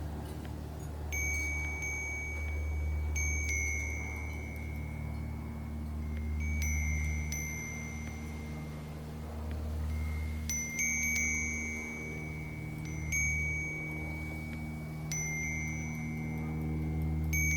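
Wind chime tubes struck by the wind at irregular moments, about a dozen times, sometimes two in quick succession, each note ringing on, over a steady low hum.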